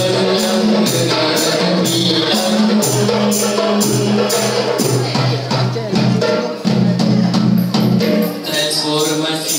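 Nasyid group of schoolboys singing in harmony into handheld microphones, over hand percussion keeping a steady beat that thins out about halfway through.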